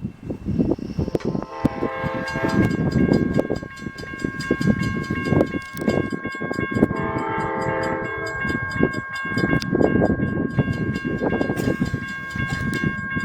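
Amtrak passenger train's horn sounding two blasts, one about two seconds in and one about seven seconds in, as the train approaches a level crossing. Under it a crossing warning bell rings with even, rapid strokes, over a low rumble with wind on the microphone.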